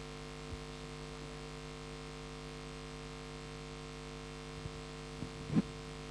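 Steady electrical mains hum through the microphone and PA system, with a few faint knocks and one brief thump about five and a half seconds in.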